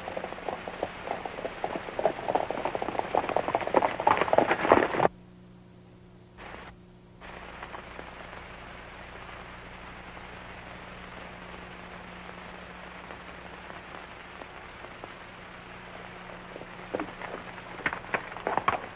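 Horses' hooves galloping, a rapid clatter that grows louder and then cuts off abruptly about five seconds in. After that only a steady hiss and low hum of an old film soundtrack, until a few hoofbeats return near the end.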